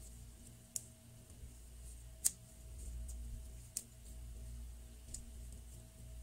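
Play-Doh being pulled and peeled away from a plastic cookie cutter, with soft sticky crackles and four sharp clicks, the loudest about two seconds in.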